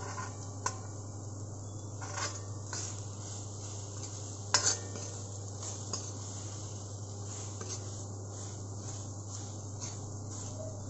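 Steel ladle stirring and scraping onions and spices in oil in a steel kadhai, with a faint sizzle and a few sharp metal clinks, the loudest about four and a half seconds in. A steady low hum runs underneath.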